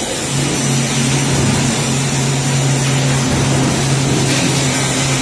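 Centre lathe running: its motor and gear train give a steady low hum that comes in about a third of a second in, over a constant wash of machine noise.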